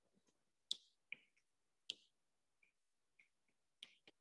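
Faint, irregular clicks of a stylus tip tapping on a tablet's glass screen during handwriting, about half a dozen taps.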